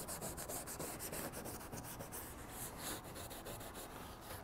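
Hand scuffing of a painted fiberglass keel guard with an abrasive pad, in quick back-and-forth rubbing strokes. This is light scuffing between spray-paint coats, to take the shine off so the final coat sticks.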